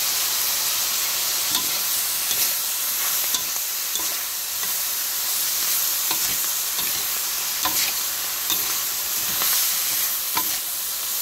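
Pork and onion flower stems sizzling in a hot wok while a metal spatula stirs in the freshly added seasonings, with irregular clicks and scrapes of the spatula against the pan over a steady hiss.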